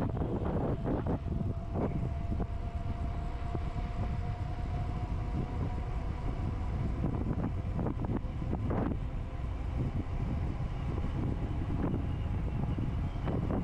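Steady low rumble of a vehicle in motion, with a faint steady whine over the first half and a few short knocks.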